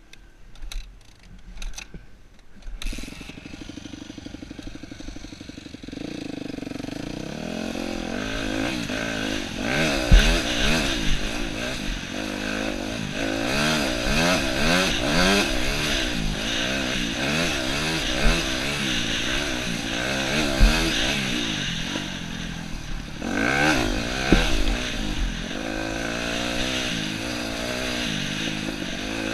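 Yamaha YZ250F dirt bike's 250cc four-stroke single-cylinder engine under way on a trail, revving up and down over and over as the throttle is worked. It is quieter for the first few seconds, then louder, with a few sharp thumps along the way.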